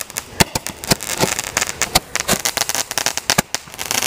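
Firework going off in a rapid, irregular run of sharp crackling pops and snaps, growing denser near the end.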